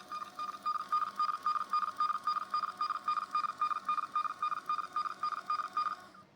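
TSC desktop barcode label printer printing labels at a print speed lowered to 127 mm/s, the setting that cures its loud grinding motor noise: a pulsing whine at about five pulses a second that stops about six seconds in.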